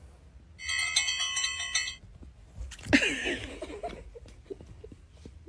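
A bell-like chiming tone that pulses for about a second and a half, starting about half a second in. About three seconds in comes a brief, louder sound that glides in pitch.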